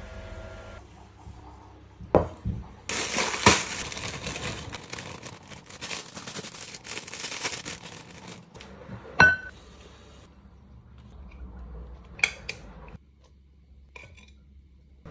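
Plastic salad bag crinkling as leaves are shaken out of it into a glass bowl, with sharp clinks of plates and utensils against the glass bowl, one of which rings briefly about nine seconds in.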